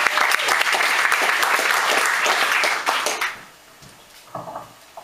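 Audience applauding, dense clapping that dies away about three seconds in. The rest is much quieter, apart from a brief faint sound near the end.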